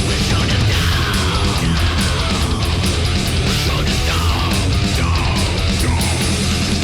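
Heavy rock music with distorted guitars and drums, playing steadily.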